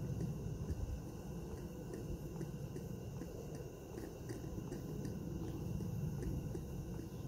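Live-steam model beam engine running, with a light, regular ticking from its moving parts over a low steady rumble.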